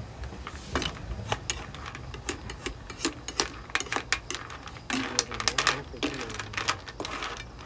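Plastic spatula clacking and scraping against a nonstick wok while stir-frying seafood, an irregular run of quick clicks and scrapes that comes thickest about five seconds in.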